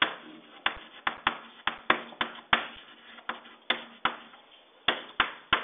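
Chalk on a blackboard while writing: a run of sharp, irregular taps, about three a second.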